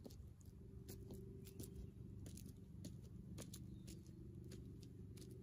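Faint, irregular light clicks and crackles of footsteps on the bark of a fallen tree trunk and the dry twigs around it, over a low steady background hum.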